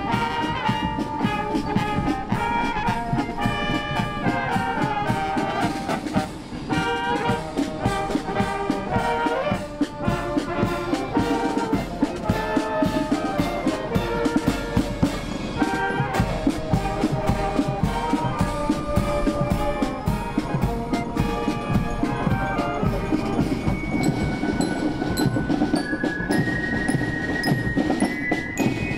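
Marching brass band playing a march on trumpets, trombones, baritones and tubas, with a drum beat underneath. Near the end the brass gives way to a marching drum corps, with snare drums ticking and bell lyres ringing high notes.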